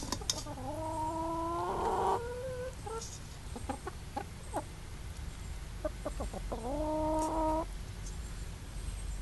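Chickens calling: two long drawn-out calls that rise and then hold, the first near the start and the second about two-thirds of the way through, with short clucks in between.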